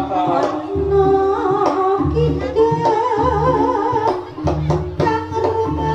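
Live jaranan music from a Javanese troupe's ensemble: drums and a deep low beat about every second and a quarter under a wavering high melody, with singing.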